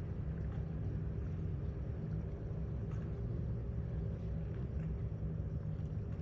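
Passing freighter's engines heard across the water as a low, steady rumble with a faint hum above it.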